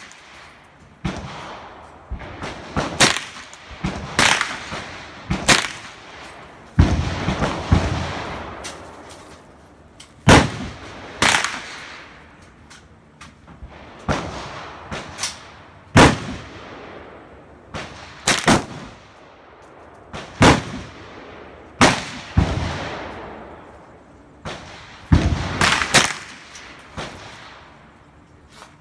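Firearm shots fired one at a time at irregular intervals, about one every one to two seconds, some louder than others; each is a sharp crack followed by a fading echo.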